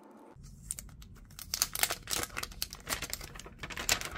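Packaging crinkling and crackling in quick, irregular crackles as a smartphone is lifted out of its box and handled, starting about half a second in.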